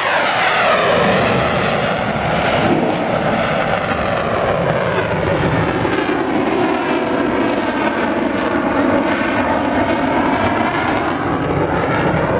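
Eurofighter Typhoon's twin jet engines passing low and loud: a falling sweep in pitch as it goes by near the start, then continuous jet noise with a slowly shifting, swirling tone as the aircraft moves away and turns.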